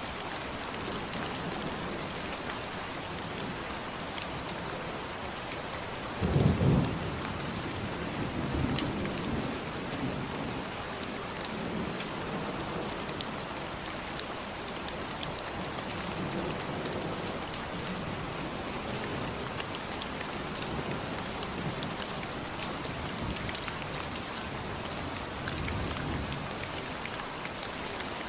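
Steady rain with pattering drops, and low rumbles of thunder: the loudest about six seconds in and a weaker one near the end.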